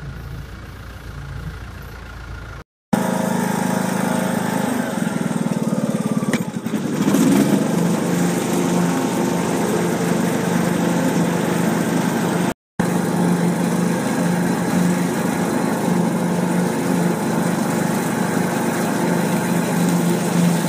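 A ride-on lawn mower's engine running steadily while the mower drives along, with a strong, even hum. For the first three seconds, before a cut, a skid-steer loader's engine is heard more quietly.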